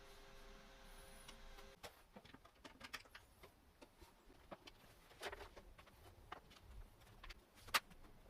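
Light, scattered clicks and knocks of small wooden parts being handled during hand-tool work, one sharper knock near the end. A brief steady pitched tone sounds in the first second and a half.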